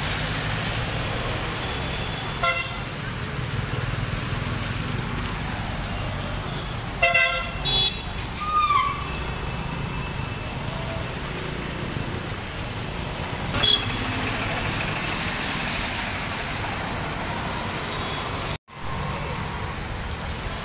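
Street traffic on wet roads, a steady hiss of tyres and engines, with vehicle horns honking: one short honk about two and a half seconds in, a cluster of loud honks around seven to eight seconds, and another near fourteen seconds. The sound drops out for a moment near the end.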